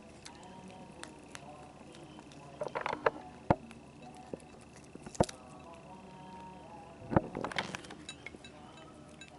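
A cat eating chicken off a china plate: chewing and chomping, with sharp clicks of teeth, bone and meat knocking against the plate, the loudest about three and a half, five and seven seconds in.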